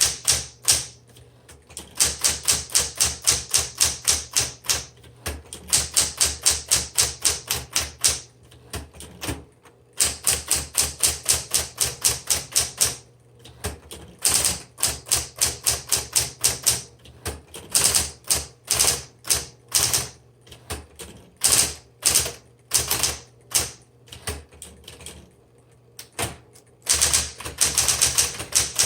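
Smith Corona Electra 110 electric typewriter being typed on, with rapid runs of type-bar strikes broken by short pauses. A steady low hum from its running motor sits underneath.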